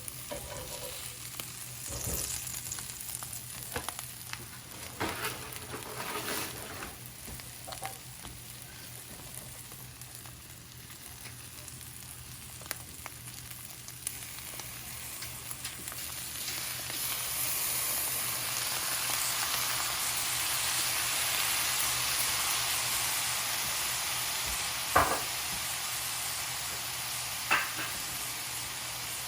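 Food frying and sizzling while it is stirred, with scattered scrapes early on; the sizzle grows louder and steadier about halfway through. Two sharp knocks ring out near the end.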